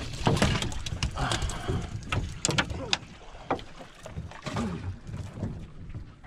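Scattered knocks and clatter of handling aboard a fiberglass fishing boat, the first ones as a caught black sea bass is dropped into the fish box. Faint voices, wind and water run underneath.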